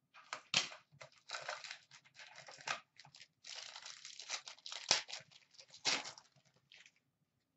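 Plastic wrapper of a hockey card pack crinkling and tearing as it is pulled open by hand, amid irregular rustling of the box packaging, with one sharp click about five seconds in.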